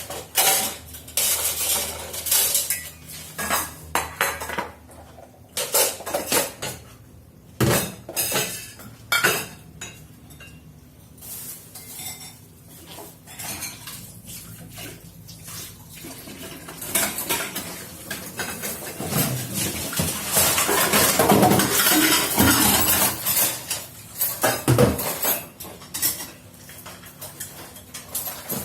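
Dishes, pots and cutlery clattering as a kitchen is cleared, with irregular clinks and knocks throughout and a louder, busier stretch of clatter about two-thirds of the way in.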